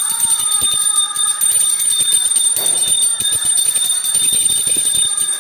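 Small hand-held puja bell rung steadily and rapidly during an aarti, a continuous high metallic ringing made of many quick strikes.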